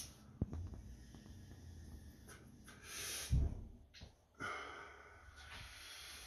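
A person smoking from a small hand pipe: a sharp lighter click about half a second in, then breathy draws and exhales. The strongest exhale, with a low puff, comes around three seconds in, and another breathy exhale follows about four and a half seconds in.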